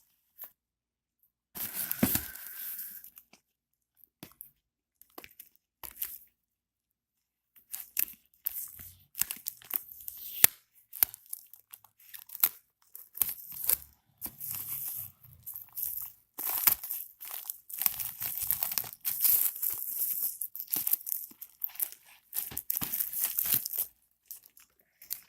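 Shipping packaging being torn open and crinkled by hand: irregular tearing and rustling, with a short burst about two seconds in, then a mostly silent stretch, and near-continuous handling from about eight seconds on.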